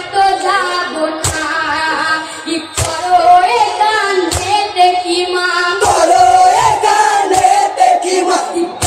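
Marsiya jari, a Muharram lament song, sung by a boy's voice with other voices joining in, over a sharp beat that falls about every one and a half seconds.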